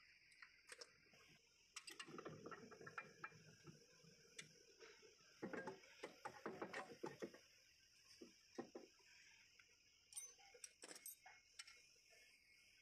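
Faint, irregular metallic clicks and taps of a ratchet and socket being worked and handled at a brake caliper, in scattered clusters.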